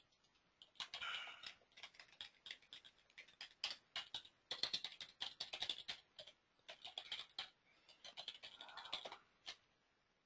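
Faint, irregular typing on a computer keyboard: a quick, uneven run of key clicks that stops shortly before the end.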